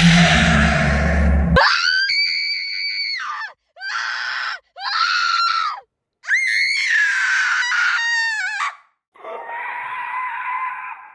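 Horror sound-effect screams: a loud hissing noise with a low hum cuts off about a second and a half in, followed by a string of high-pitched screams, each sliding down in pitch at its end, the last one lower and hoarser.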